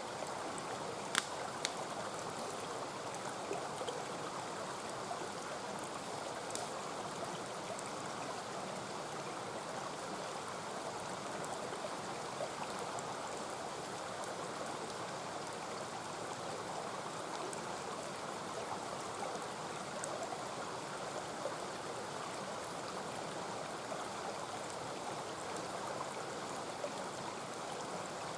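Mountain stream rushing steadily. A few sharp pops from a wood campfire cut through it, the loudest about a second in.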